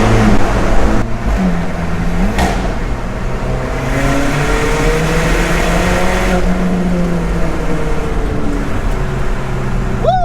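Alfa Romeo 4C's turbocharged four-cylinder engine pulling under load on its stock exhaust. It drops briefly in pitch and level about a second in, then runs steadily.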